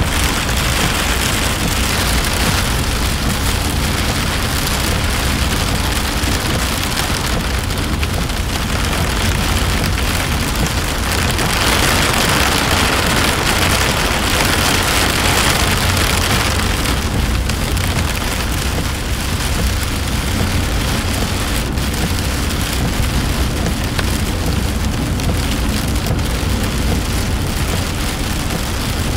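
Heavy rain pelting a moving car's windshield and roof, heard from inside the cabin, over a steady low rumble of tyres on the wet road. The rain swells for a few seconds near the middle.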